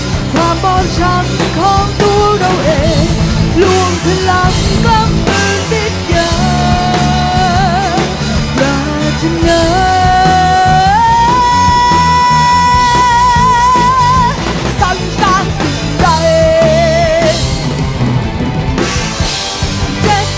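A rock band of electric guitars, bass, keyboard and drum kit playing behind a girl singing lead. About ten seconds in, her voice climbs to a long high note that she holds for a few seconds with vibrato.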